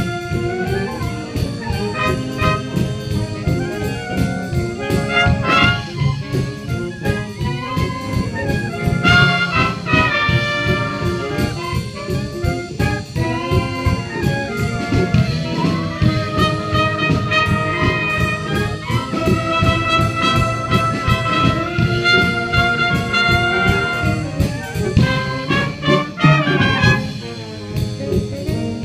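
Community wind band playing a big-band style tune, with trumpets and clarinets leading over a steady rhythmic bass.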